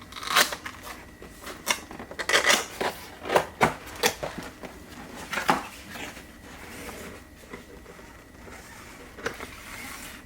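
Cardboard packaging being opened by hand: a run of sharp taps, scrapes and crinkly rustles, busiest in the first six seconds, then a softer rustle as contents are handled.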